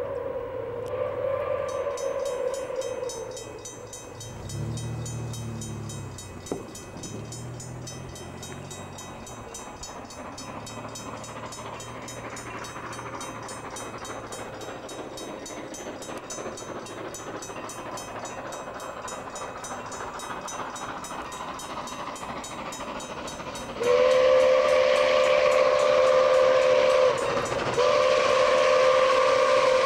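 Milwaukee Road 261, a 4-8-4 Northern-type steam locomotive, approaching: its steam whistle dies away in the first few seconds, the sound of the train builds slowly, then about 24 seconds in the whistle sounds a loud long blast, breaks off briefly, and blows again.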